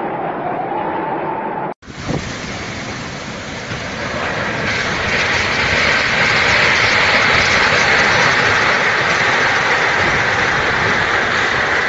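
Storm wind and rain, a steady rushing noise. An abrupt cut about two seconds in ends a faint wavering whistle of wind. After the cut the rush grows louder for a few seconds and then holds.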